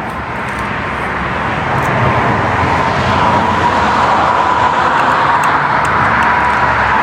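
A car moving: steady road, tyre and engine noise that swells over the first two seconds and then holds, with a thin steady whine running through it.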